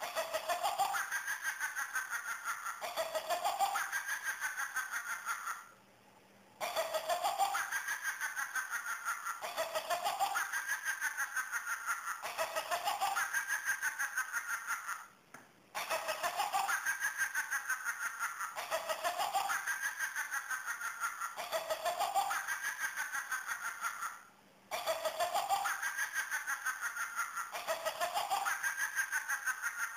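Electronic toy witch playing a recorded high-pitched cackling laugh on a loop. Each cackle lasts about a second and a half, and there is a brief pause about every nine seconds.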